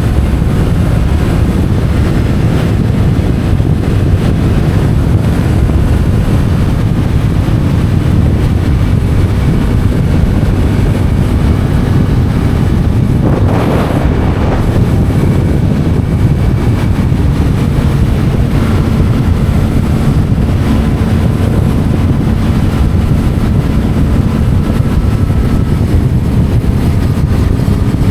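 Yamaha MT-07's parallel-twin engine running through an Akrapovic titanium exhaust while riding, with wind noise on the microphone. A short rush of noise about halfway through.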